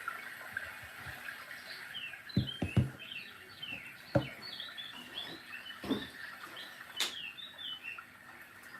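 Bird-like chirping: a quick run of many short, falling chirps that starts about two seconds in and carries on nearly to the end. A few dull knocks fall in among the chirps.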